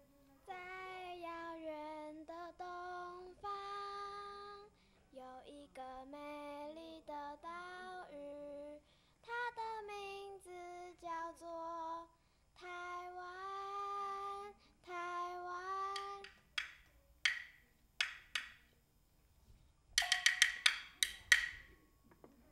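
A female voice singing a slow solo melody in phrases of long held notes. Near the end come sharp wood-block strikes, first a few spaced knocks, then a quick run of them.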